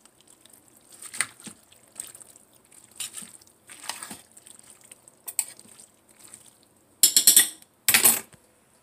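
A utensil stirring egg noodles and shredded chicken in the juice in a Crock-Pot's stoneware crock. There are wet squelches and short scrapes and clinks against the crock about once a second, then two louder clatters near the end.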